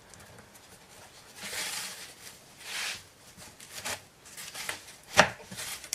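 A wooden-framed ceramic tile panel being slid and handled on a workbench: two rubbing, scraping passes in the first half, then a few light knocks and one sharp knock about five seconds in.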